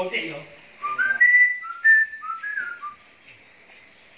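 A brief voice-like sound, then a quick run of about eight clear whistled notes stepping up and down in pitch, ending about three seconds in, over a faint high hiss.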